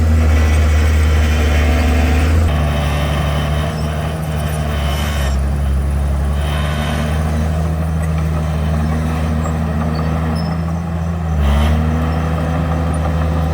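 Komatsu bulldozer's diesel engine running hard, its note dropping about two and a half seconds in and rising and falling again near the end, with spells of rushing noise over it.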